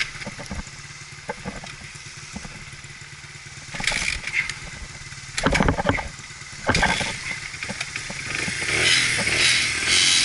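Dirt bike engine running at idle, with short loud bursts about four, five and a half and seven seconds in, and a louder spell near the end.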